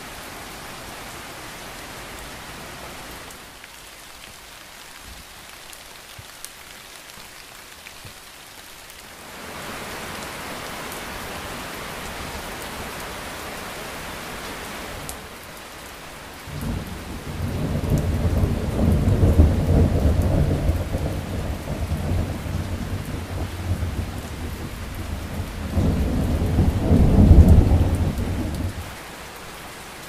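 Steady rain hissing throughout. About halfway through, a long, low rumble of thunder comes in over it and rolls in two waves, the second the loudest, before dying away near the end.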